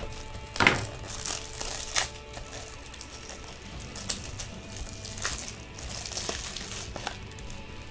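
Plastic wrapper crinkling and rigid plastic clicking as a pack of Ultra Pro 180-point toploaders is opened and a couple of holders are pulled out. Irregular sharp crackles, the loudest just under a second in and at about two seconds.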